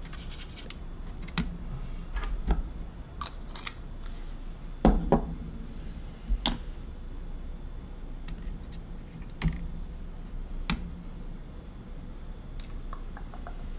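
Scattered small clicks and taps of hobby tools being handled and set down on a workbench, with a few louder sharp clicks among them.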